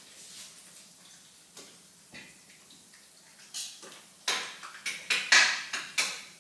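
Kitchenware clinking and knocking against a cooking pot, while misua noodles are put into the pot: a few faint ticks, then from about halfway a quick run of sharp clinks, some with a short metallic ring.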